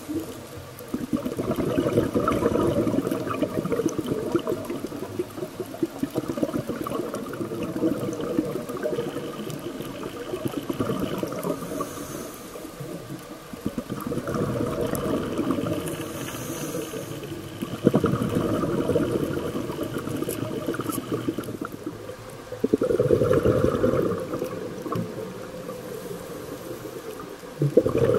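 A scuba diver's exhaled bubbles rushing out of the regulator, heard underwater: bubbling bursts that each last a few seconds, separated by quieter gaps while the diver breathes in.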